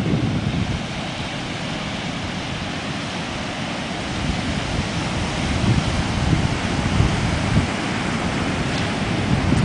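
Ocean surf washing steadily onto a sandy beach, with wind buffeting the microphone in gusts that grow stronger after the first few seconds.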